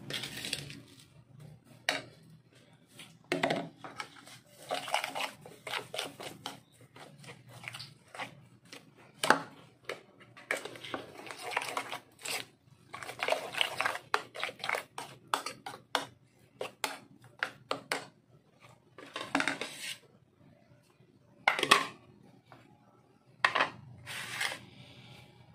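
A kitchen utensil scraping, clicking and knocking irregularly against plastic bowls and plates as food is handled, over a faint low hum.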